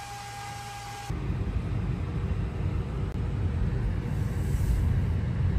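A faint steady high tone, then an abrupt change about a second in to a loud, steady, low rumble like a running vehicle.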